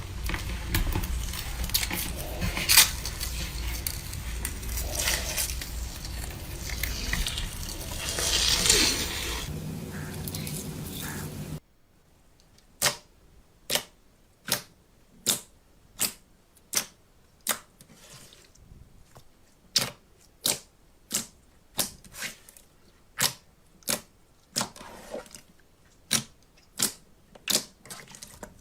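Slime being squeezed and worked, a dense crackling, crunching sound over a low hum. Then after a sudden cut comes a steady run of sharp clicks, about one every 0.7 seconds.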